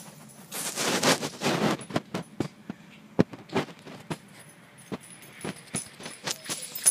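A dog chasing down and grabbing a thrown fetch ring: a scuffling rush about half a second in, then scattered sharp clicks and knocks.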